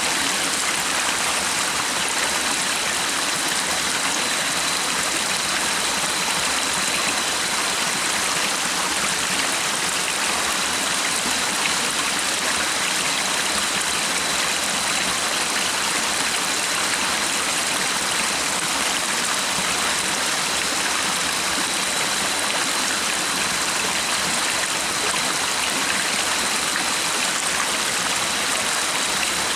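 Stream water flowing and splashing in a steady, unbroken rush, with a thin steady high tone running under it.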